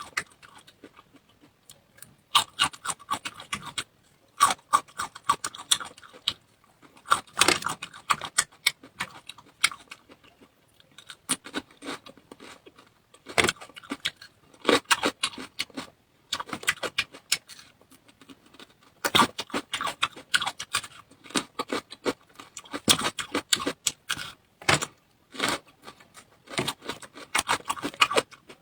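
Close-miked eating: bursts of crisp, clicky chewing and crunching lasting a second or two at a time, with short pauses between mouthfuls.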